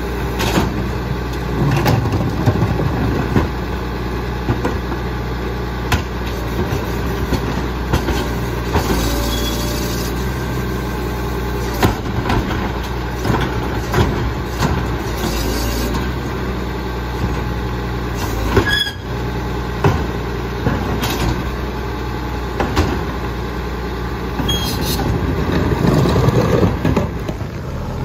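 Diesel engine of a Labrie Expert split-body side-loading garbage truck running steadily while its hydraulic cart tipper lifts and dumps trash carts into the hopper, with repeated knocks and clangs of carts and tipper arm and short hisses. Near the end the engine sound swells.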